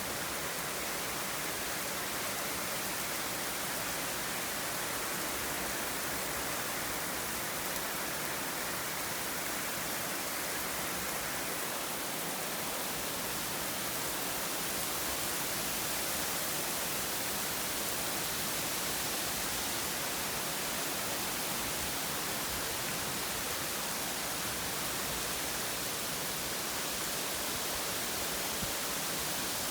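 Steady rain falling during a thunderstorm, an even hiss with no thunderclap.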